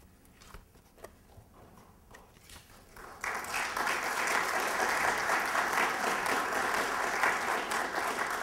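Audience applauding, starting suddenly about three seconds in after a quiet stretch with a few faint clicks, and going on steadily.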